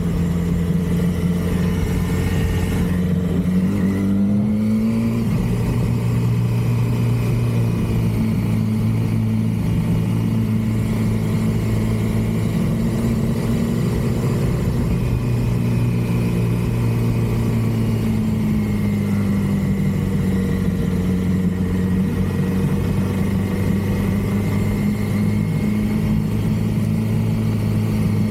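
A vehicle engine running steadily at speed. Its pitch rises about three to five seconds in, then holds with slight rises and falls.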